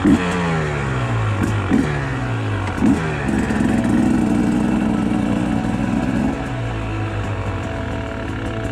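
Husqvarna TE 300 two-stroke enduro motorcycle engine revving as the bike rides off. Its pitch falls several times in the first three seconds, then holds steady and louder at higher revs for about three seconds before settling lower.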